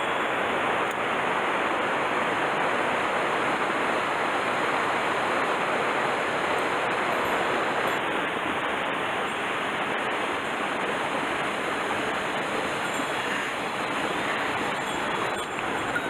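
Steady rush of a rocky mountain stream, water running over stones and small cascades.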